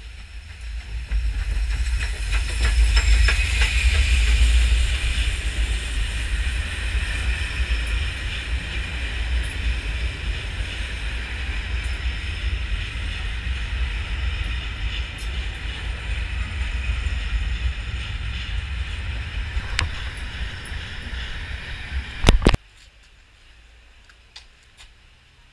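Steam-hauled passenger train of coaches behind LMS Princess Royal Pacific No. 46201 'Princess Elizabeth' running into a station: a steady rumble and hiss of wheels on rail that grows loud over the first few seconds, then slowly eases as the train slows. It cuts off sharply near the end to a faint quiet background.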